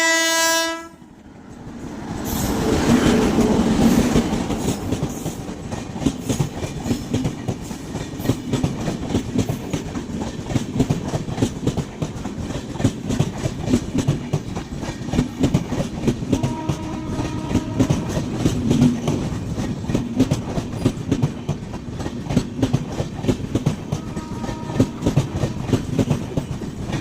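Passenger express train's horn cutting off about a second in. The train then rushes past at speed, wheels clattering rapidly and continuously over the rail joints.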